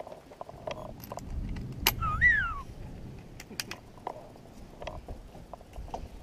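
Light metal clicks and clinks from zipline harness and trolley hardware as the rider shifts in the harness and grips the handle strap, with a low rumble of wind on the microphone about a second in. A single short squeal rises and then falls about two seconds in.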